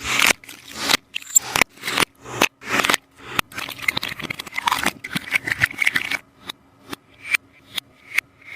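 Sticky taba squishy being pressed and pulled apart, its tacky surface peeling with a dense run of crackling, scraping sounds several times a second, thinning to separate sharp clicks over the last couple of seconds.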